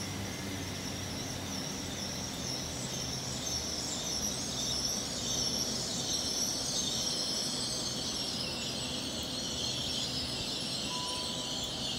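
Heavy rain hissing down over the station and tracks as a Hitachi Class 800/802 IET train runs past the platform. A low hum from the train fades out a few seconds in.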